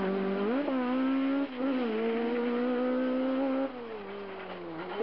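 Ford Escort Mk2 rally car engine revving hard under full throttle, with a quick gear change about one and a half seconds in. Near the end the revs fall away as the throttle is lifted.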